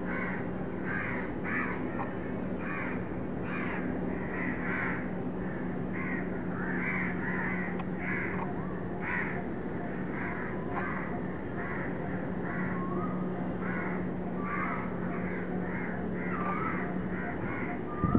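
Crows cawing over and over, several calls overlapping at about two a second, over a steady low hum.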